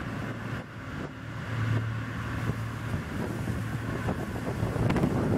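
Passenger ferry's engine droning steadily, with wind on the microphone and rushing water from the wake; the wind buffeting grows stronger near the end.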